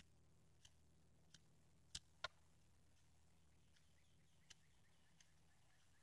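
Near silence with faint, scattered sharp ticks of a fixed-blade knife catching and shaving a wooden stick as it is carved toward a point, the two loudest about two seconds in. A few faint bird chirps in the second half.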